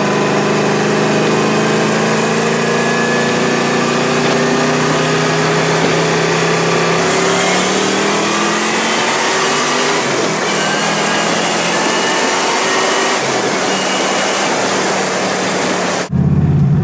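Supercharged V8 of a CN Cobra roadster pulling at road speed, heard from the open cockpit under heavy wind rush. The engine note shifts about ten seconds in. Near the end the sound cuts off abruptly to a lower, steadier engine note.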